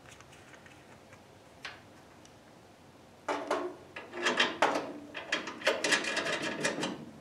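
Aluminum air-conditioning tubes being handled and fitted against a car's A/C condenser fittings. After a quiet stretch with one faint click, a run of rubbing, scraping and light clicks follows for the last few seconds.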